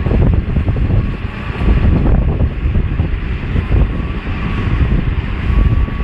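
Heavy machinery rumbling, with wind buffeting the microphone. A faint high whine comes and goes over the rumble.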